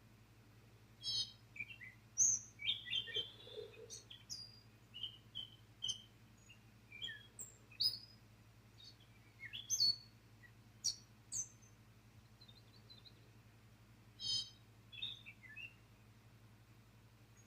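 Wild birds calling: a scatter of short, high chirps and whistles at varying pitches, some sliding up or down, with brief gaps between them, over a faint steady low hum.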